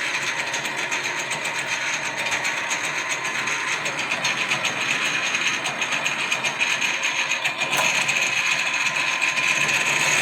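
Metal-working lathe running during a plain-turning cut, a steady mechanical whir from the spindle and gears with a high whine over it.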